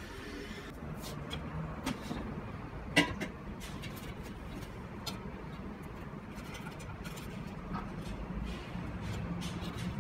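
Handling noises of a plate and a plastic air fryer basket on a countertop: one sharp clack about three seconds in, then lighter clicks and taps as bread slices are laid in the basket, over a steady low hum.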